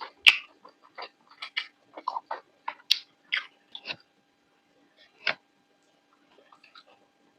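Close-miked crunchy chewing of crisp-coated fried kurkure momos: a quick irregular run of sharp crunches for about four seconds, then a single loud crunch and a few faint ones near the end.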